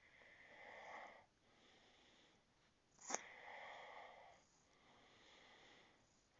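Faint sniffing breaths and one short, sharp cat sneeze about three seconds in, from a cat that is unwell and sneezing repeatedly.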